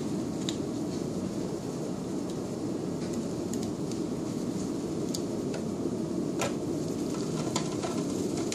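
Steady rushing room noise from air handling, with a few faint, short clicks from handling the collimator's metal cover.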